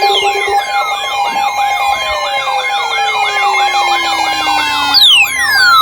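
Emergency Alert System attention signal: two steady alarm tones layered with a fast warbling, siren-like tone and long falling pitch sweeps. A new sweep starts near the end.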